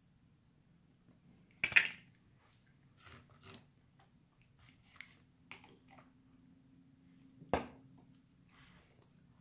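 Close-up eating sounds from crab legs: soft chewing and small clicks of shell being picked apart, with two sharp cracks, one a couple of seconds in and one about two seconds before the end.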